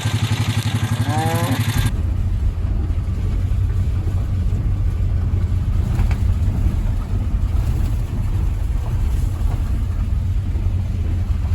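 Small engine idling with an even pulse. About two seconds in, it cuts off abruptly into a low, steady rumble.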